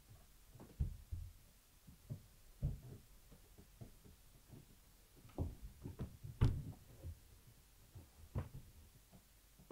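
Soft, irregular low thumps and short rustles of a person crawling under a kotatsu quilt. The loudest bump comes about six and a half seconds in.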